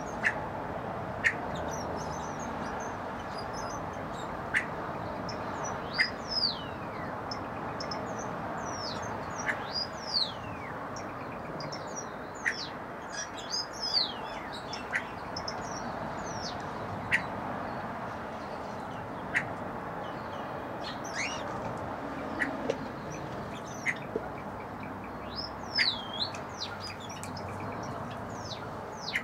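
Small birds in a mixed aviary chirping and whistling: many short, sharp chirps every second or two and several falling whistles, over a steady background noise.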